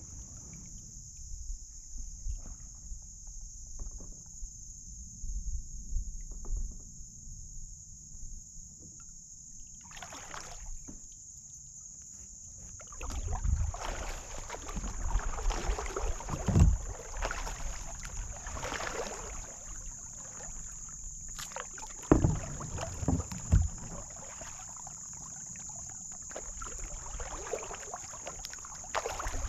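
Kayak paddling on a slow river: paddle strokes splashing and dripping in stretches, with a few sharp knocks of the paddle against the hull. A steady high-pitched drone runs underneath.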